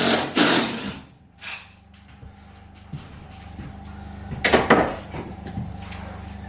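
A few knocks and clunks of hardware and tools being handled, the loudest about four and a half seconds in, over a steady low hum.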